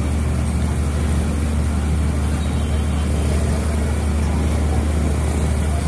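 A steady low mechanical hum and rumble, unchanging throughout, with no distinct knocks or clicks.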